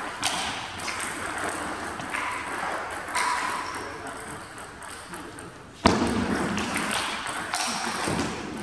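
Table tennis balls clicking sharply on tables and bats in a sports hall, scattered single pings over a background of hall noise and distant voices, with one louder knock about six seconds in.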